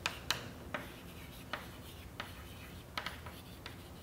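Chalk writing on a chalkboard: faint scratchy strokes broken by sharp, irregular taps as the chalk meets the board.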